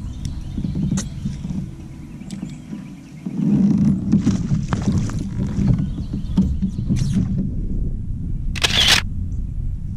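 Knocks and clicks from fishing gear being handled in a kayak over a low rumble, with one short, sharp hissing burst about nine seconds in.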